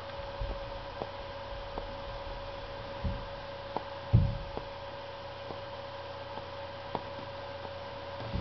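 A steady electrical hum, with faint sharp clicks at irregular intervals as keys on a tablet's touchscreen keyboard are pressed. A few short low thumps come through, the strongest about four seconds in.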